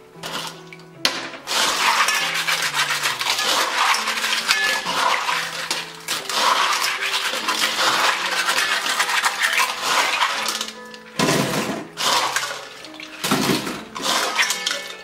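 Manila clam shells clattering and scraping against each other and the stainless steel bowl as they are rubbed together by hand under water, with sloshing water and a couple of short pauses near the end. Soft background music plays underneath.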